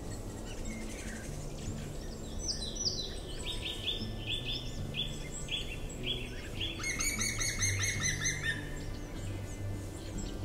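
Songbirds singing in a conifer forest: a run of repeated clear high notes, joined about seven seconds in by a fast, dense trill that stops about a second and a half later. Soft background music with slow low notes plays underneath.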